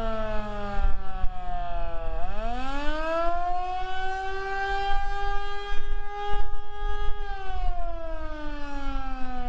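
Federal Signal Model 2 outdoor warning siren sounding the attack signal, a wavering wail: its pitch falls to a low point about two seconds in, winds back up within about a second and a half, holds steady for about three seconds, then falls again near the end. Wind rumbles on the microphone underneath.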